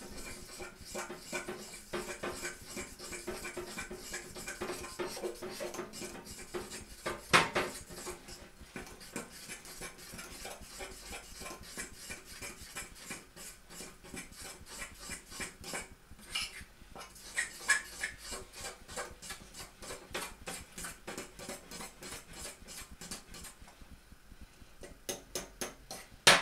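A fork whisking pancake batter in a bowl: quick, steady clinks and scrapes of metal against the bowl, several a second, with one louder knock about seven seconds in and another near the end.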